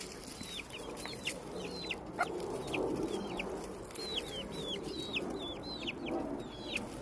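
A flock of chickens: many short, high peeps, each falling in pitch and overlapping several to the second, over low clucking.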